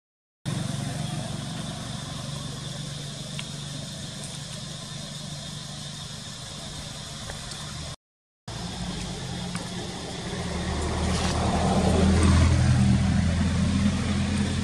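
Steady low engine hum, cut off briefly twice, swelling louder from about ten seconds in and easing a little near the end.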